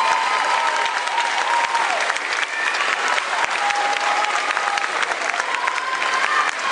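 Audience applauding with dense, steady clapping, with a few high voices calling out over it.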